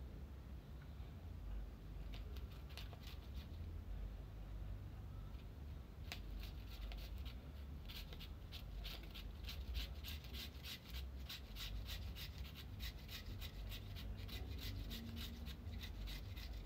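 Carrot being grated on a handheld grater: repeated rasping strokes, sparse and faint at first, then quick and steady at about three or four a second from about six seconds in. A low steady hum runs underneath.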